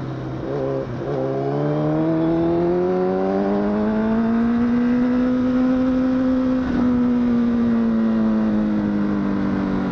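Honda CBR1000RR (SC57) inline-four engine under acceleration, its revs climbing steadily for about five seconds, then holding and easing off slightly, with a brief break in the note about two-thirds of the way through.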